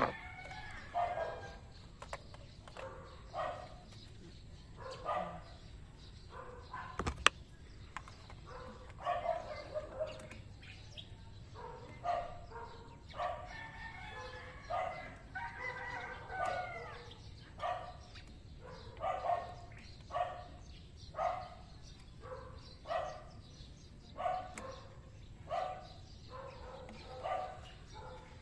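Chickens clucking: short calls repeating about once a second throughout, with one sharp click about seven seconds in.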